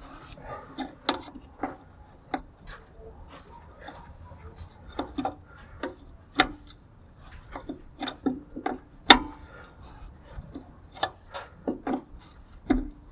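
Hand tools clinking and tapping on metal brake parts: a run of sharp, irregular metallic clicks and knocks, the loudest about nine seconds in.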